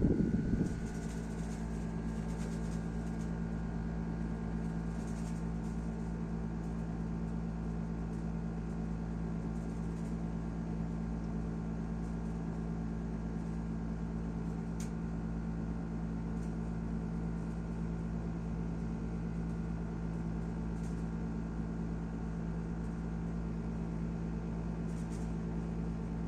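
National (Panasonic) window air conditioner running with a steady low hum made of several fixed tones: the abnormal noise the unit is making. A loud thump comes right at the start, after which the hum settles slightly louder and holds unchanged.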